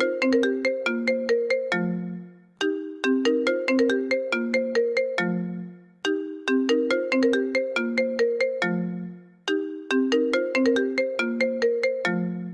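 Mobile phone ringtone playing a short melody of quick, decaying notes, the same phrase looping about every three and a half seconds.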